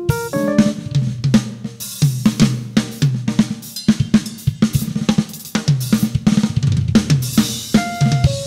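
Live funk-fusion band music led by a drum kit: snare, kick, hi-hat and cymbals playing a busy groove over a repeating electric bass line. A few higher melodic notes come in at the start and again near the end.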